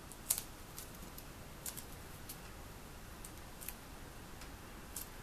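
Scissors snipping through thin polyethylene foam underlayment: several short, crisp clicks at irregular intervals, the loudest about a third of a second in.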